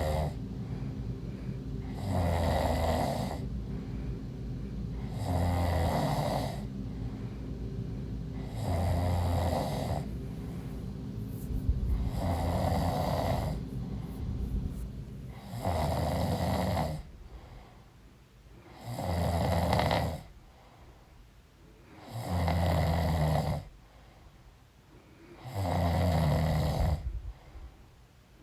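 A pregnant woman snoring in her sleep: loud, regular snores about every three to three and a half seconds, each lasting a second or two. A steady low background hum fills the pauses at first and falls away about halfway through, leaving quiet gaps between the later snores.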